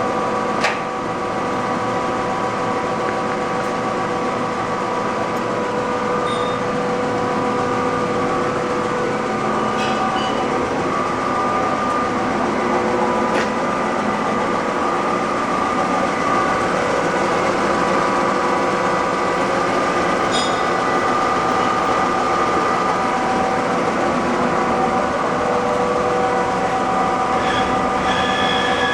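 TOS SN710N engine lathe running steadily, its geared headstock giving a constant whine of several tones over mechanical noise. There is a sharp click about a second in.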